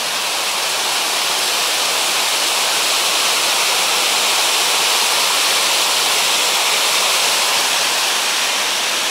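Small cascade waterfall on the Aluoja stream: water rushing steadily over the step, a little louder toward the middle.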